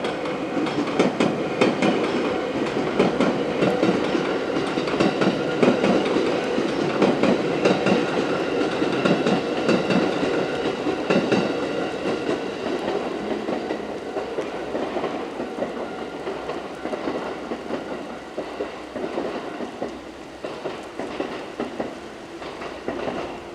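JR West 221 series six-car electric train passing over a level crossing, its wheels clattering rhythmically over the rail joints. The sound is loudest in the first half and fades gradually as the train moves away.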